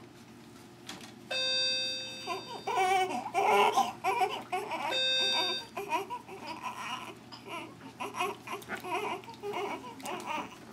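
Newborn baby crying in wavering bursts during a bath. A steady electronic beep sounds twice, once about a second in and again about five seconds in.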